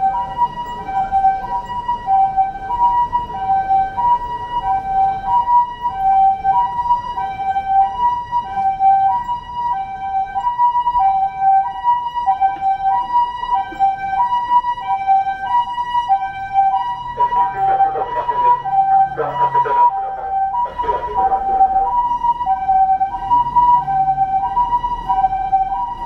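Japanese ambulance siren sounding its two-tone "pee-po" call, alternating a higher and a lower tone about every half second at a steady level. A few short, louder noises break in about two-thirds of the way through.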